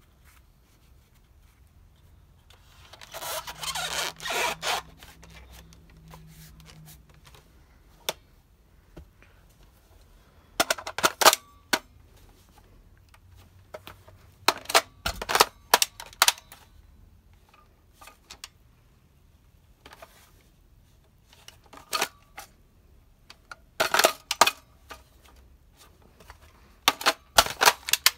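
Toy foam-dart blaster being primed and fired with a foam suppressor tube on its muzzle, in several short bursts of sharp plastic clacks and snaps. About three seconds in there are a couple of seconds of rustling handling noise.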